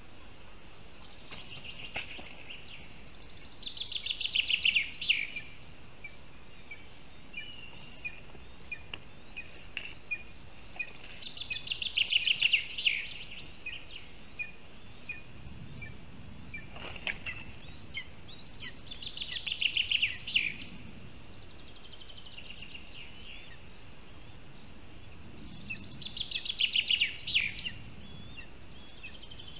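A bird singing nearby: four fast, rattling trills about seven seconds apart, each building up over a second or so, with faint high chirps in between.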